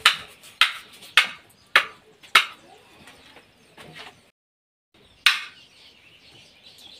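A metal spoon knocking against a metal saucepan of cooked apples in sharp, evenly spaced strikes about two-thirds of a second apart: five in a row, then one more after the sound briefly cuts out.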